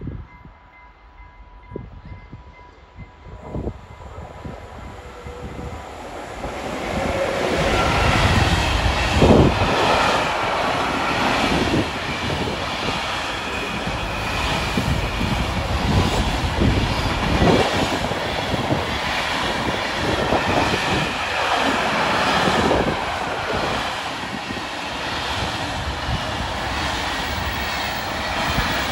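Container train hauled by an electric locomotive, approaching and then passing close by. A distant rumble grows into loud, steady wheel noise on the rails, with regular clickety-clack knocks as the wagons' wheels pass, and the empty flat wagons rattle near the end.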